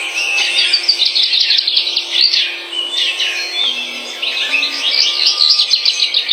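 Birds chirping: a dense, continuous stream of rapid, high-pitched chirps.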